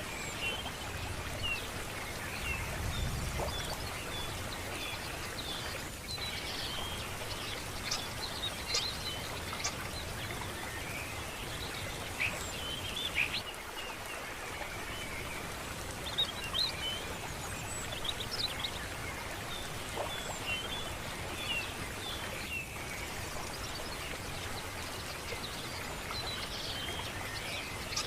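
Many small birds chirping over a steady rush of running water.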